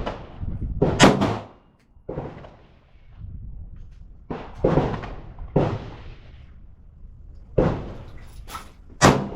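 Handgun shots, fired one at a time at irregular gaps of about a second, each a sharp crack with a short ringing tail. Some shots are louder than others, the loudest about a second in and near the end.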